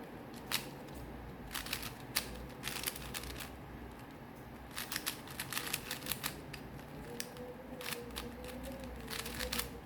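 Plastic 4x4 Rubik's Cube being turned by hand, its layers clicking and clacking in quick irregular clusters as it is worked toward the solve.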